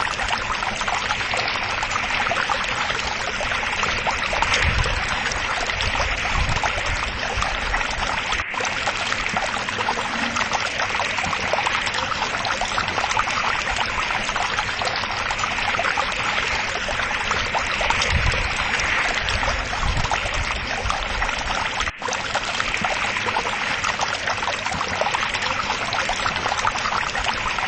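Steady rush of running water, with a few low bumps here and there.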